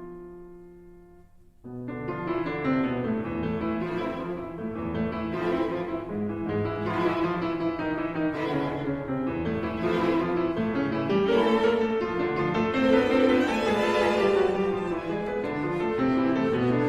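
Music played on cello, violin and piano. A held chord dies away, and about two seconds in the strings and piano start up again with a steady pulse.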